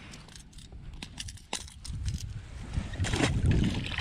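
Water sloshing against a boat hull as an uneven low rumble that swells about halfway through, with a few light clicks.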